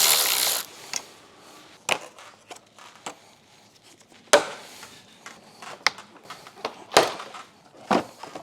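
A power tool undoing an 8mm fastener runs and cuts off just over half a second in. It is followed by scattered sharp clicks and knocks of metal and plastic car parts being handled while a bumper support frame is removed.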